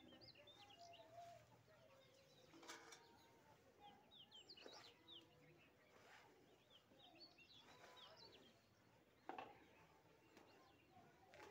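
Near silence with faint birds chirping, short flurries of quick high calls every few seconds. A few soft rustles come from the turban cloth being handled.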